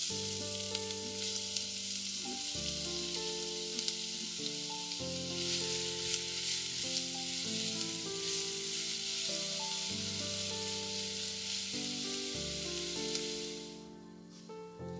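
Diced onion dropped into hot oil in a pot, sizzling and frying as it is stirred; the sizzle starts suddenly as the onion goes in and dies down near the end. Soft piano music plays underneath.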